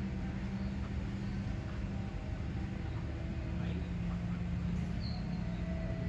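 Ambient music of low, long-held notes, over the murmur of a crowd's voices. A faint short chirp comes near the end.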